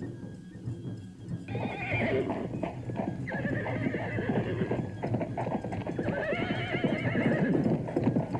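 A horse neighing repeatedly in wavering whinnies that begin about a second and a half in, over a steady clip-clop of hooves. Background music plays underneath.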